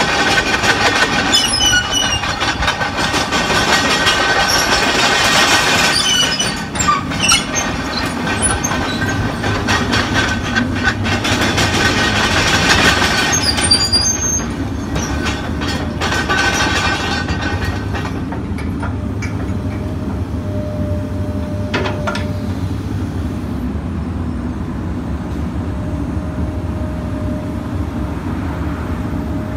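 Komatsu PC210 tracked excavator travelling on its steel track chains, which clank and squeal, over the engine's running noise for about the first half. It then stops travelling and the diesel engine runs on more steadily and quietly, with a faint hydraulic whine twice as the arm moves.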